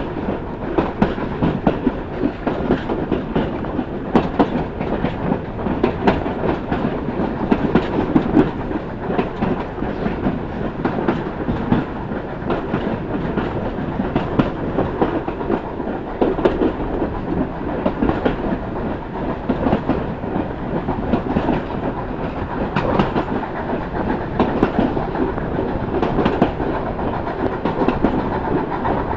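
Train carriage running along the track, heard from the carriage: a steady rumble with many irregular clacks and knocks from the wheels and the rails.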